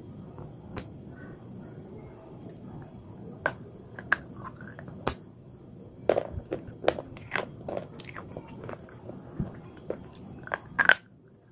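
A few sharp clicks of slate pencil sticks being handled and set down. Then, from about six seconds in, a quick run of sharp crunches as a slate pencil is bitten and chewed.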